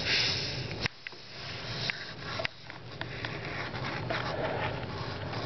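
Close breathing and sniffing with faint rustles and handling clicks. The sound drops away suddenly twice, about a second in and again about two and a half seconds in.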